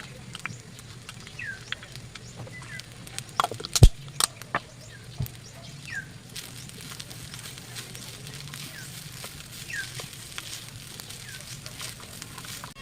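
A bird giving short downward-sliding chirps every second or two, over a low steady hum. A few sharp knocks and clicks, the loudest about four seconds in.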